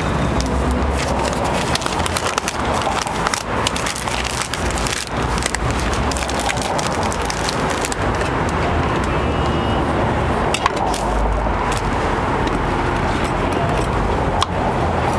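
Steady street noise with a low traffic rumble, swelling about eleven seconds in, and scattered sharp clicks and crinkles of a paper crepe sleeve being handled.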